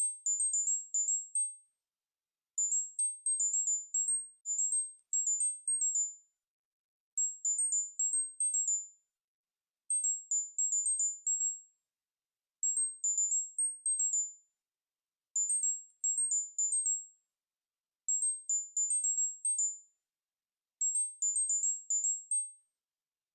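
A repeating sequence of short, very high-pitched electronic beeps, each group a quick run of notes stepping up and down among a few pitches, repeating about every two and a half to three seconds with short silent gaps: a tone pattern played to mask tinnitus.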